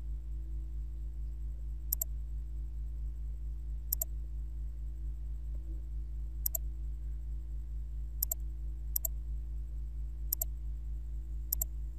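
Computer mouse clicking, seven single clicks spaced a second or two apart, over a steady low hum.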